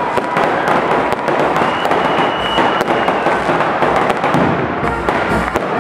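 Fireworks bursting overhead in a continuous dense crackle of many rapid small pops. About two seconds in, a thin steady whistle sounds through it for a second or so.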